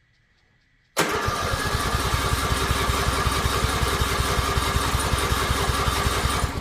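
Riding lawn mower's engine being cranked by its electric starter. It starts abruptly about a second in and turns over steadily and quickly for about five and a half seconds. It acts like it wants to start but is not catching.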